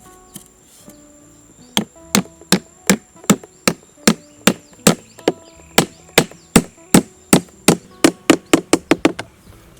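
Repeated sharp blows on wood, like chopping or striking sticks, about twenty strikes. They start about two seconds in at roughly two a second, quicken toward the end, then stop.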